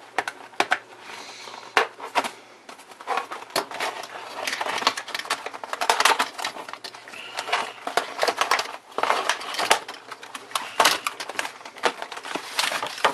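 Packaging being opened and handled: irregular crinkling, rustling and clicking of the wrapping as the USB soldering iron is unpacked.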